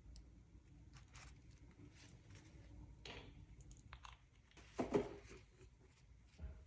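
Scattered small clicks and knocks of handling, with a louder clatter about five seconds in and another knock near the end.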